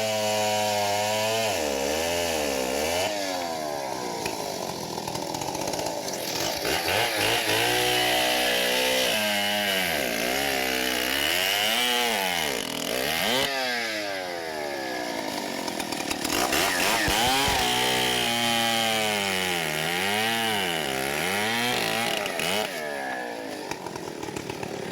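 Two-stroke chainsaw cutting wood, its engine pitch repeatedly dropping under load and rising again as it revs.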